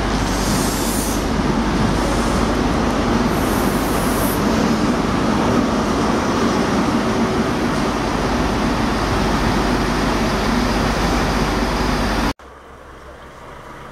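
Yellow New Measurement Train, an HST with Class 43 diesel power cars, moving along the platform: a steady, loud rumble of diesel engine and coach wheels, with two short hissing bursts in the first few seconds. About twelve seconds in it cuts off abruptly to a much quieter background.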